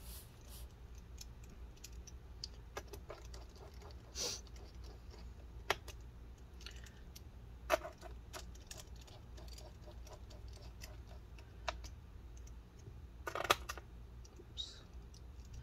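Faint, scattered clicks and ticks of a small precision screwdriver driving pentalobe screws back into a MacBook Pro's aluminium bottom case, with a few sharper clicks spread through and a short cluster of them near the end.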